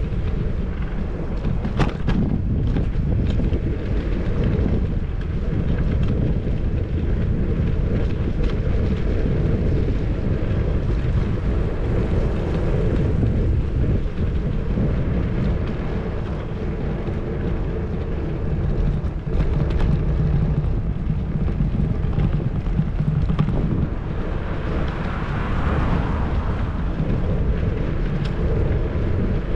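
Wind buffeting the microphone of a bicycle-mounted action camera while riding, over a steady low road rumble. There are scattered clicks and rattles, and the hiss swells briefly about twenty-five seconds in.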